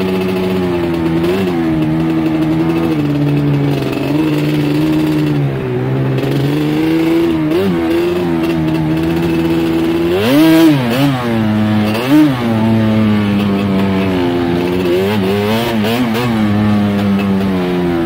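ATV engine running steadily as the quad is ridden along a dirt trail, its pitch rising and falling with the throttle, with two quick revs about ten and twelve seconds in.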